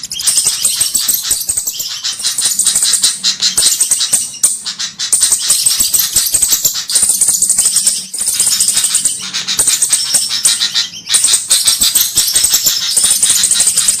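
Bird-lure (pikat) recording of rapid, high-pitched chattering bird calls, made to draw in flowerpeckers, running in loud runs of a second or two with short breaks between.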